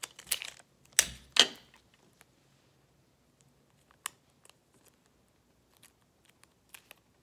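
Sticky tape pulled off the roll of a clear plastic tape dispenser and torn on its cutter: three short ripping strokes in the first second and a half. After that come faint small clicks as the tape is pressed onto a rubber balloon.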